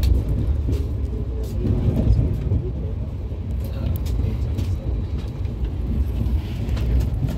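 Passenger train running, heard from inside an AC chair car coach: a steady low rumble with scattered small clicks and rattles.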